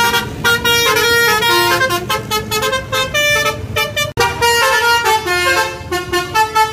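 A bus's electric multi-tone 'telolet basuri' horn playing a melody of short stepped notes, breaking off for an instant about four seconds in and then starting again.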